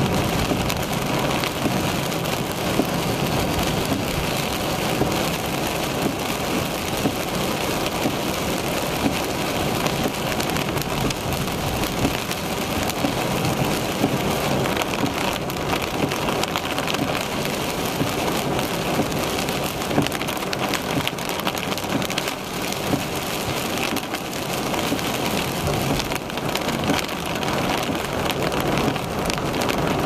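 Heavy rain falling on a car's roof and windshield, heard from inside the car: a steady, dense hiss of many small drop impacts.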